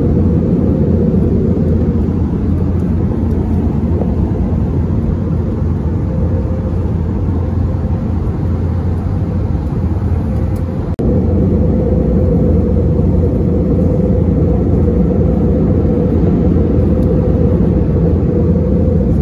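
Steady low rumble of an Airbus A321's cabin in flight: engine and airflow noise heard from a window seat, with a brief dip about eleven seconds in.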